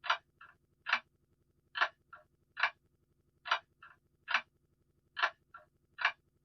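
Clock ticking steadily: a sharp tick a little more than once a second, each followed by a fainter tock.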